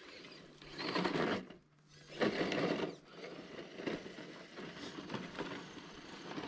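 Radio-controlled Enduro Trail Walker crawler truck driving along a dirt trail, its small electric motor and gears whining. There are two louder, rougher bursts about a second and two seconds in, then it runs on more quietly.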